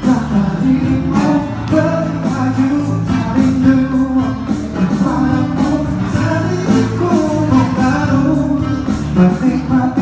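Live band playing a song: a man singing into a microphone over acoustic guitar, with drumsticks keeping a steady beat on an electronic percussion pad.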